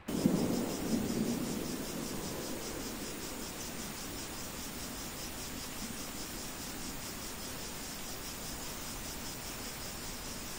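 Rain-sounds ambience: a low thunder rumble fading away in the first couple of seconds, then a steady rain hiss with crickets chirping in a fast, regular pulse.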